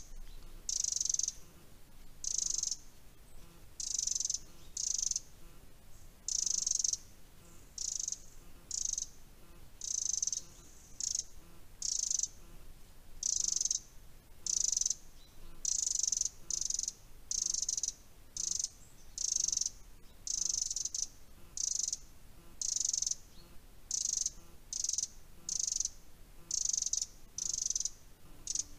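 An insect of the cricket and grasshopper kind stridulating: short, high-pitched buzzy chirps repeated unevenly, a little more than one a second.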